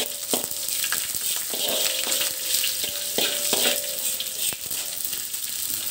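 Dried anchovies sizzling in hot oil in a wok, with a metal spatula repeatedly scraping and knocking against the wok as they are stirred.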